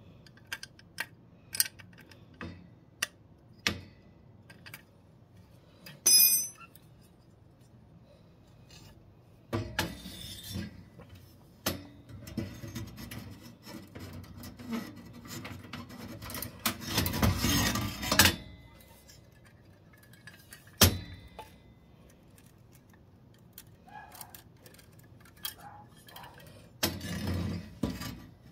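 Hands working a gas boiler pilot burner assembly and its copper thermocouple: scattered sharp clicks and clinks of small metal parts and fittings, a brief high squeak about six seconds in, and a longer rustling scrape about two thirds of the way through.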